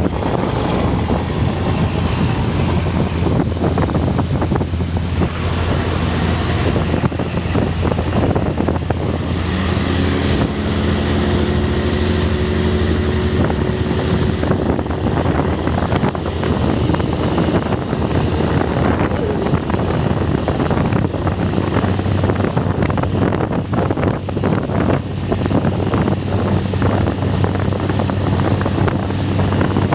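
A motor vessel's inboard engine running steadily on test, with wind buffeting the microphone. About ten seconds in, a higher engine tone comes in briefly and holds for several seconds.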